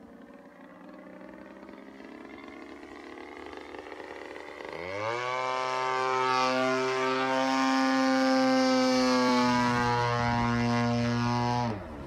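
Small propeller plane's piston engine, faint at first, then opened up sharply about five seconds in to a loud, steady pitched drone, and throttled back suddenly near the end.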